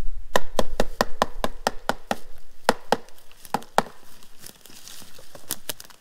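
Sharp, rhythmic knocking: a quick run of about ten knocks at roughly five a second, then a few slower pairs. It is made deliberately as noise to warn bears that a person is in the forest.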